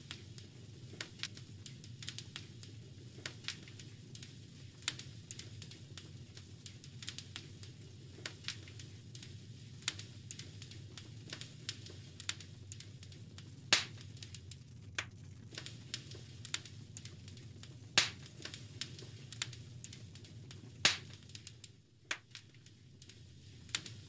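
Fireplace fire crackling: a steady low rumble broken by frequent sharp snaps and pops, with a few much louder pops standing out.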